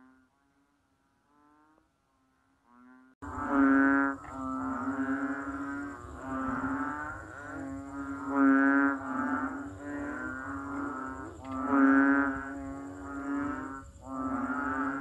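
Banded bullfrogs (Kaloula pulchra) calling: low, drawn-out calls each about a second long, repeated and partly overlapping. A few faint short calls come first, then the calling turns loud about three seconds in.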